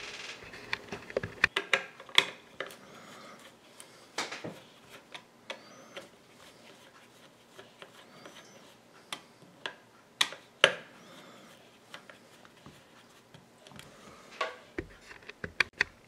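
Irregular clicks, taps and knocks of a plastic wall-switch housing being reassembled and a screwdriver working its terminal screws, louder knocks about 2, 4 and 10 seconds in and a cluster near the end.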